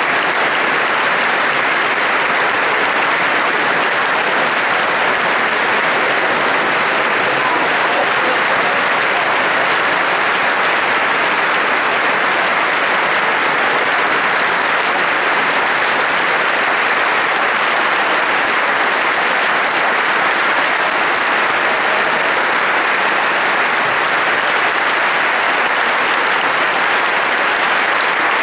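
Concert hall audience applauding steadily, a dense, unbroken clapping at an even level.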